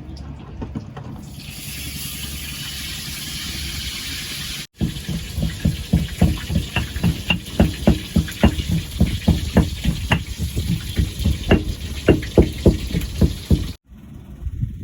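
Water rushing with a hiss, then a long run of rapid, irregular splashes and slaps.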